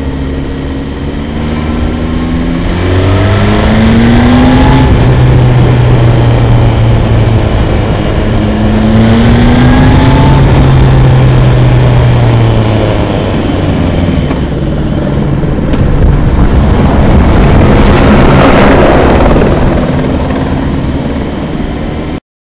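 A motorcycle engine pulls under acceleration, its pitch rising twice as it revs up, over a constant loud rush of wind and road noise. The sound cuts off abruptly near the end.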